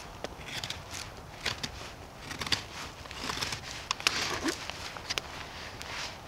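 Irregular rustling and crunching of footsteps and handled deadwood in dry forest litter, with scattered small sharp cracks of twigs.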